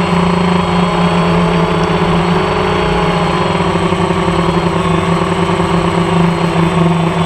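Aircraft engine running steadily, a loud even hum heard from on board in flight.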